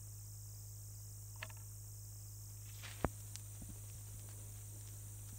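Vinyl record surface noise in the lead-in groove: a steady low hum and hiss with scattered clicks and pops, the loudest pop about three seconds in.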